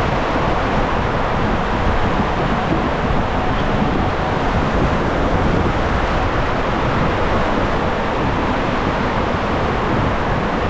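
Steady rushing of water and a raft sliding down an enclosed water-slide tube, heard from on board the raft.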